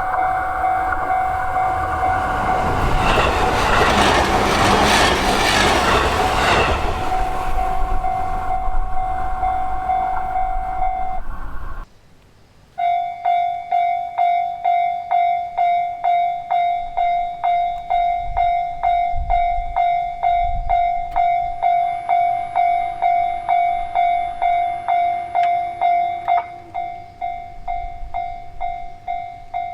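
Japanese level-crossing warning bell ringing, with an Ome Line electric train rushing past over the first few seconds and its wheels clattering on the rail joints. After a brief break, the crossing bell rings on alone in even strikes, about two a second.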